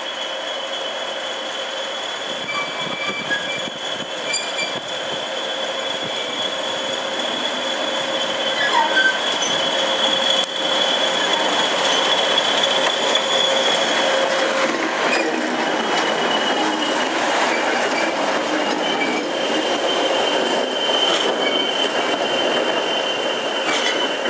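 English Electric Class 20 diesel locomotive running at low speed, its engine growing louder over the first several seconds as it comes closer, with a steady high-pitched whistle over the engine note throughout.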